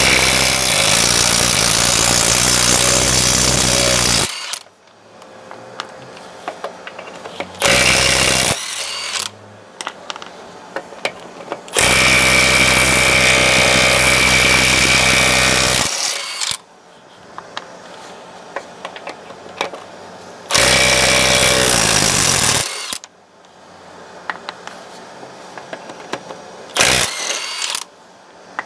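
Milwaukee M12 Fuel 1/2-inch drive compact impact wrench on full power, hammering wheel nuts loose. It runs in five bursts: two of about four seconds, one of about two seconds, one short one and a brief blip near the end. Between the bursts there are scattered clicks and knocks.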